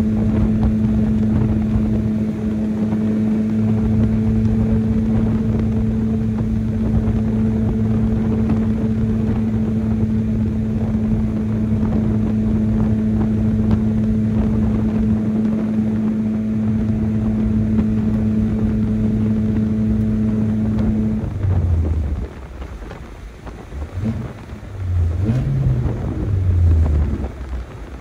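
Stock four-cylinder engine of a manual Chevrolet S10 pickup droning at steady revs while driving. About three quarters of the way through it drops away, and near the end the revs briefly rise and fall a few times.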